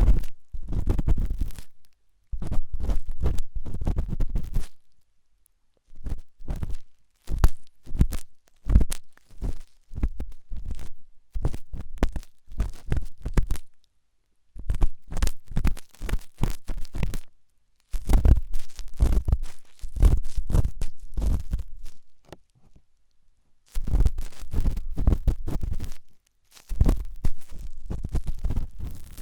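Close-up ear cleaning: a tool scraping and rubbing hard in an ear against the microphone, in scratchy, crackling strokes with short silent pauses between them.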